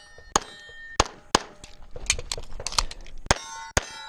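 Rapid pistol fire: about six loud shots, roughly half a second apart. Steel targets clang and ring after hits, most clearly near the end.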